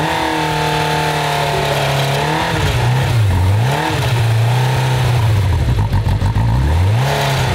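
Motorcycle engine running unevenly, its revs rising and falling several times and sagging low as it threatens to stall while the throttle is worked to keep it going. The owners suspect a fuel-supply fault at the fuel tap.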